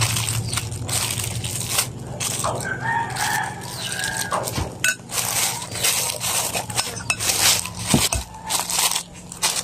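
Thin plastic bag crinkling and rustling in the hands while a metal spoon scoops soft dough into it, with a couple of sharper knocks of the spoon. A drawn-out call sounds faintly in the background for a second or two, a couple of seconds in.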